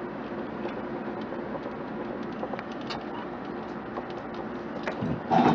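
Small clicks and taps of hands working a part loose inside a desktop computer case, over a steady background hum, with a louder knock near the end.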